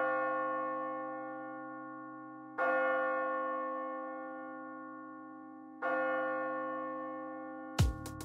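A bell tolling, struck about every three seconds, each stroke ringing out and slowly fading. Near the end an electronic beat with deep drum hits begins.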